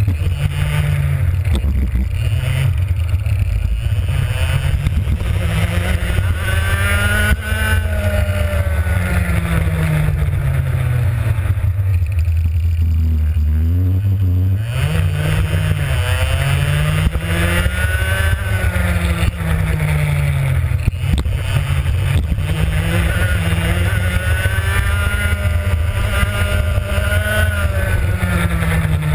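Two-stroke racing kart engine heard onboard, revving up and falling back again and again as the kart accelerates and slows through corners. The revs drop lowest about halfway through, then climb again.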